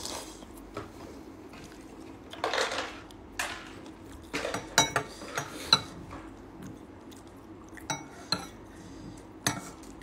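A metal fork clinking and scraping against a ceramic soup bowl, a run of sharp clinks in the middle and a few more near the end, with noodles being slurped near the start.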